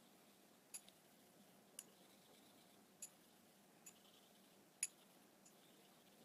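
Kamisori straight razor being honed on a hand-held whetstone: faint, sharp clicks about once a second as the blade lands and turns on the stone, with a soft scrape of the strokes between them. The loudest click comes near the end.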